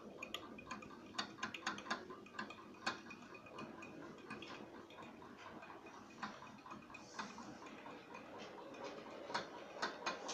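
Model railway trains running: irregular clicking of small metal wheels over rail joints and points, several clicks a second, over a steady low motor hum.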